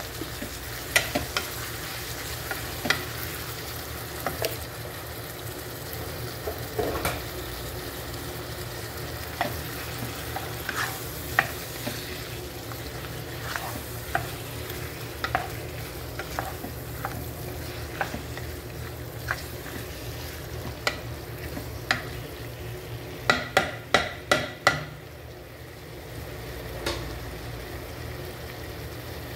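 Wooden spatula stirring squid and onions in a pan, scraping and knocking against the pan at irregular intervals over a steady sizzle. A quick run of knocks comes a few seconds before the end, then the stirring pauses.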